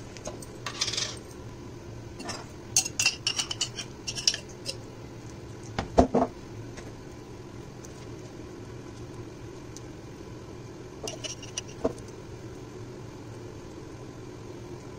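Table knife clinking against a glass jam jar and tapping on a wooden chopping board: scattered clinks, a quick run of them about three to four seconds in and a louder knock about six seconds in. A steady low hum runs underneath.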